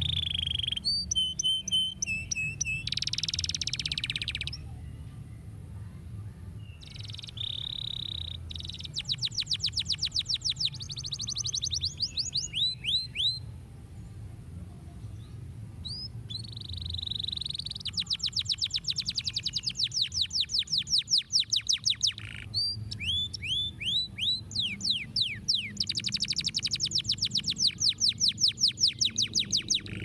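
Domestic canary singing in long phrases of fast rolling trills and drawn-out whistled notes, with short pauses between phrases.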